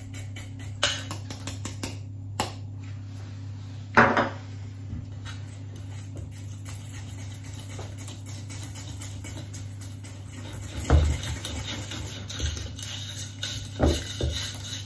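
A utensil knocking and scraping against a stainless steel mixing bowl as flour is sifted in and the batter is stirred. There are a few sharp taps in the first four seconds, then a cluster of knocks and scrapes from the stirring from about eleven seconds in. A steady low hum runs underneath.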